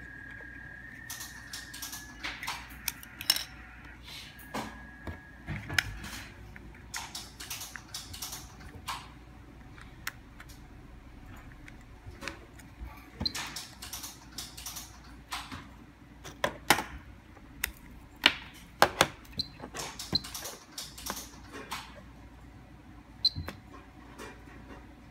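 Irregular sharp plastic clicks and taps from a handheld remote control being handled and its buttons pressed. A steady high tone sounds through the first two seconds and again briefly around five seconds in.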